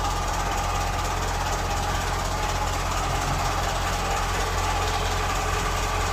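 Farm tractor's diesel engine running steadily as the tractor moves slowly forward.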